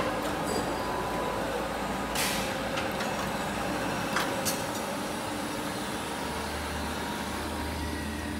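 Automated foundry sand-mold handling line running: a steady machinery hum with short sharp hisses of air about two seconds in and twice around four seconds, and a deeper hum that comes in near six seconds.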